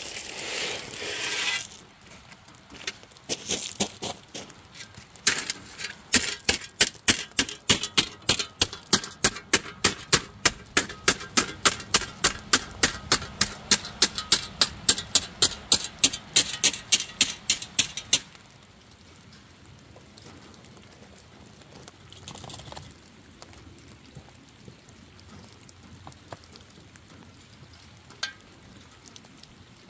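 Gravel ballast sliding off a steel shovel. Then a shovel blade is dragged along the track bed, clacking in a steady rhythm of about three strikes a second, which stops abruptly past the middle.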